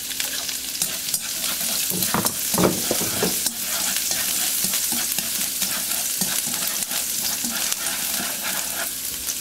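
Minced shallot and garlic sizzling steadily in hot oil in a wok, stirred with wooden chopsticks that click now and then against the pan.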